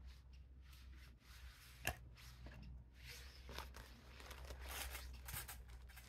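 Faint handling sounds as a folding metal wire fire-pit frame is set up: a single light click about two seconds in, among soft taps and rustling, with more rustling toward the end as parts are pulled from a fabric bag.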